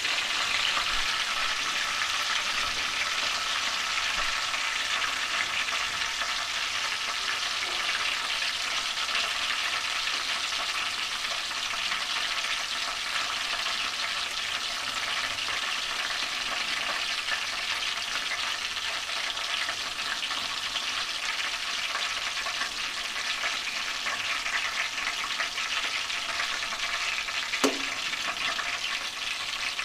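Ghee sizzling steadily in a kadhai as chopped green garlic, green chillies and whole spices fry in it, with one sharp click near the end.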